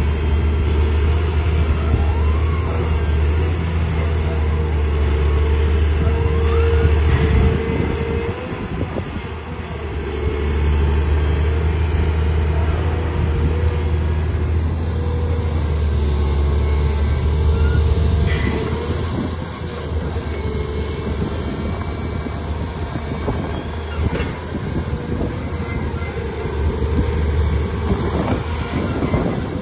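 Volvo EC300D L crawler excavator's diesel engine running steadily under load as it digs and swings soil. The engine note eases off briefly about eight seconds in and again near twenty seconds.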